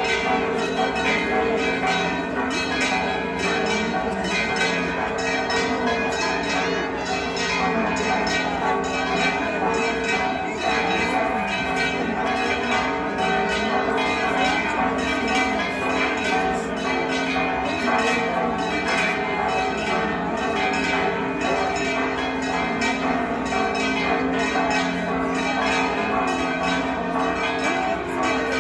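Church bells pealing continuously: many strokes in quick, overlapping succession over a steady wash of ringing tones, rung as the image of the Virgin leaves the church in procession.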